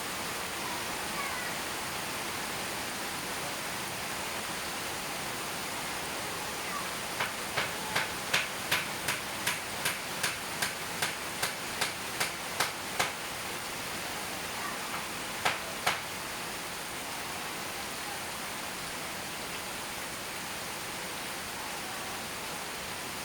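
Steady hiss of rain falling. About a third of the way in, a quick run of about sixteen sharp, evenly spaced clicks or chirps lasts about six seconds, and two more come a few seconds later.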